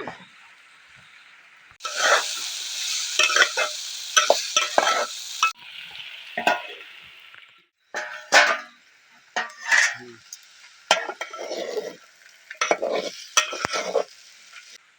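Bitter gourd frying in a hot pan, sizzling, while a spoon or spatula scrapes and clinks against the pan as it is stirred. The sizzle gets louder about two seconds in and drops back a few seconds later.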